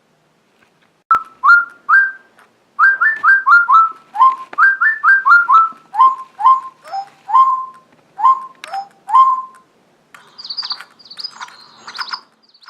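Bird-like whistling: a run of about twenty short, clear whistled notes, each sliding up and then held briefly, followed from about ten seconds in by quieter, higher, quicker twittering.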